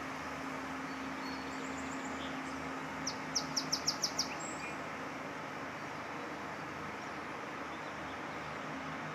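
A bird gives a quick run of six short, high chirps about three seconds in, with a few fainter chirps just before. Underneath is a steady outdoor background hiss with a faint low hum.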